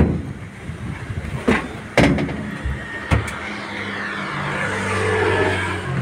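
Sharp knocks and clinks of stainless steel bowls set down on a steel counter, four times in the first three seconds. Then a passing motor vehicle's engine grows louder and peaks near the end.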